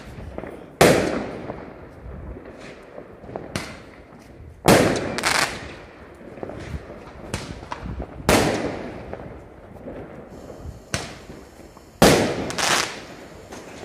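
Aerial fireworks bursting overhead: a series of sharp bangs, each followed by a fading echo, with smaller pops and crackles in between. The loudest bangs come about a second in, near five seconds (two in quick succession), at about eight seconds and at twelve seconds (again a pair).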